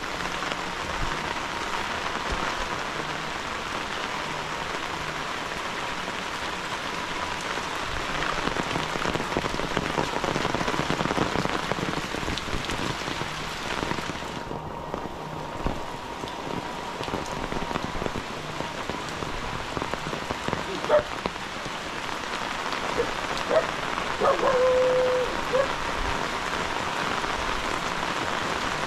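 Heavy rain falling steadily on leaves, grass and the ground. About three-quarters of the way through, a few short calls stand out above the rain, the last one held briefly.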